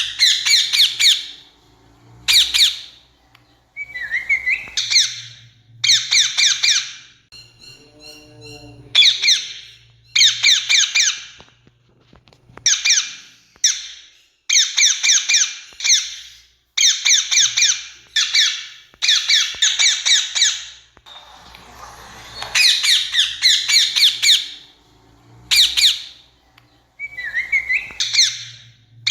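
Rose-ringed parakeets calling: harsh, high screeching notes in quick runs of two to four, repeated every second or two. One lower, pulsing call comes about eight seconds in.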